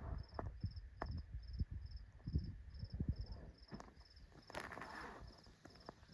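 A cricket chirping steadily at about two and a half chirps a second, over scattered low thumps and knocks.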